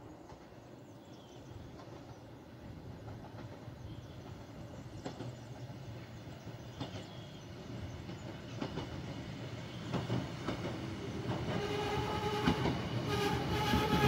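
PolRegio SA134 diesel railcar approaching, growing steadily louder, with clicks of its wheels over the rail joints. Near the end a steady pitched tone comes in and out over the running noise.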